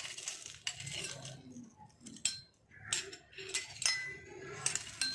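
Steel tempering ladle clinking against the rim of a glass of buttermilk as the ghee tempering is poured in: several sharp clinks, some ringing briefly.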